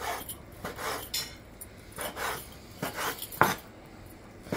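A kitchen knife cutting raw chicken breast into small cubes on a wooden cutting board: about six uneven knocks of the blade on the board, with a short pause near the end.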